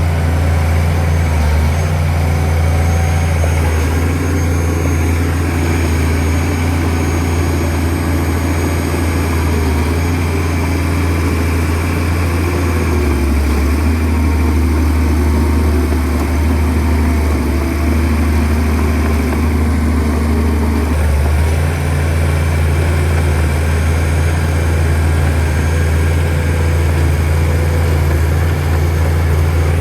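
Shantui DH17C2 bulldozer's diesel engine running steadily with a deep, continuous hum; its note shifts about halfway through and again about two-thirds of the way in.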